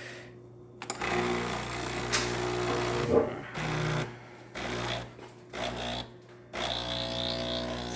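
Breville Barista Express espresso machine's pump running as a single shot is pulled, a steady mechanical hum. It starts about a second in, stops and restarts several times in the middle, then runs steadily near the end.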